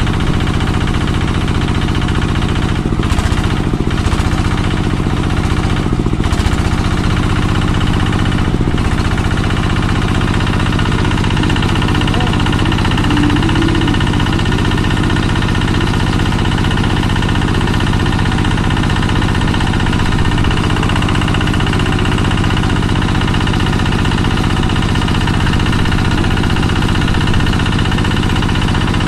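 Kubota NS80 diesel engine of an irrigation water pump running steadily.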